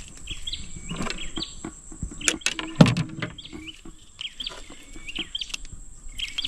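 A bird calling a short chirped phrase over and over, about once a second, over a thin steady high whine. Several sharp knocks and clicks fall around the middle, the loudest about three seconds in.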